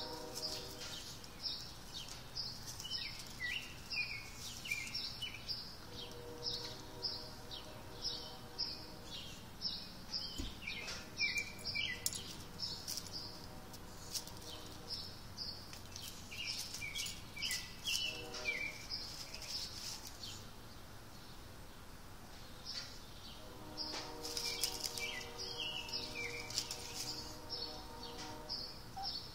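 Small birds chirping over and over in short calls, some falling in pitch, while dry leaves rustle as a small dog noses and paws through them.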